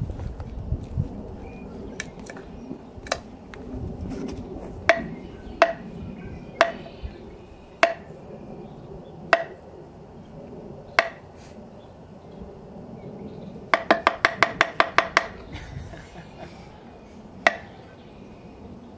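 Mora Companion Heavy Duty knife chopping into a thick stick of wood: sharp, ringing knocks about a second apart, then a quick run of about nine a little past the middle and one more near the end.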